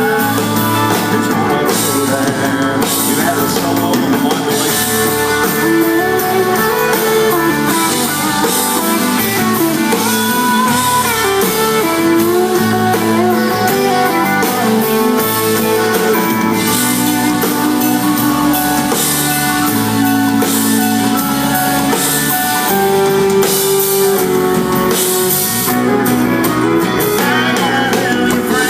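Live country band playing, with guitar over a drum kit.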